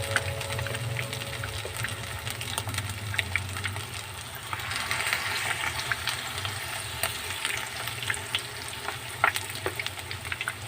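Chicken fillet pieces deep-frying in hot cooking oil: a steady sizzle broken by frequent sharp pops and crackles.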